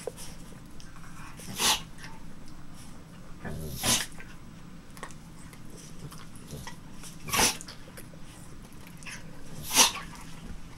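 A pit bull and a miniature pinscher play-fighting, with four short, sharp, noisy dog sounds a couple of seconds apart over a low steady background.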